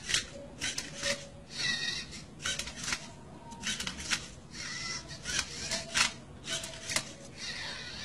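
LEGO Rubik's Cube-solving robot at work: its motors whir and the cube's layers click and scrape as they are twisted, in a string of quick, irregular clacks.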